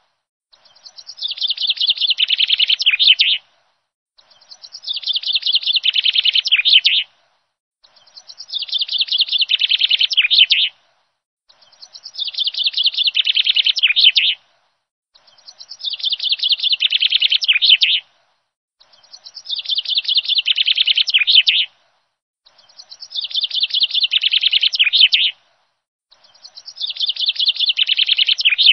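A recorded clip of a bird chirping, played on a loop: a rapid, high-pitched run of chirps lasting about three seconds that swells and then stops abruptly. It repeats about every 3.7 seconds, eight times, with dead silence between.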